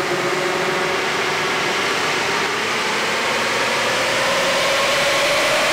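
Toyota Hilux 3-litre D4D turbo-diesel running on a chassis dyno, its rear wheels turning the rollers. A steady rushing noise, with a tone that climbs slowly through the second half as the speed builds.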